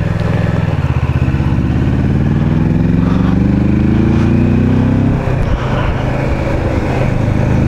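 Kawasaki Versys 650's parallel-twin engine pulling uphill under load, its pitch rising steadily for about five seconds, then dropping briefly and picking up again.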